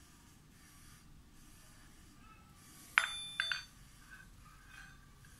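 Stanley chrome-plated steel T-handle socket wrench clinking twice, the second strike about half a second after the first, each with a short metallic ring.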